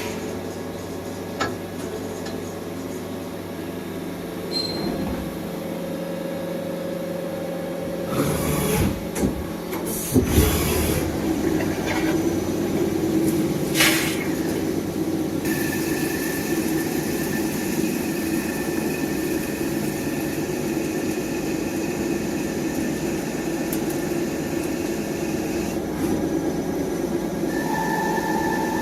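CNC machine running, a steady mechanical hum. A higher steady whine joins about halfway through and stops a few seconds before the end, and a few short bursts of noise come between about a third and halfway through.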